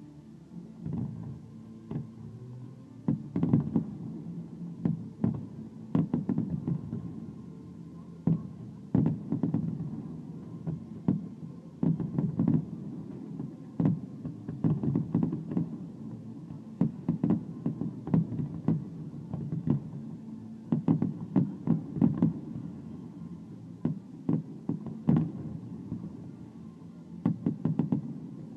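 Aerial fireworks bursting in a rapid, irregular barrage: repeated low booms, often several in quick succession, with crackle in between.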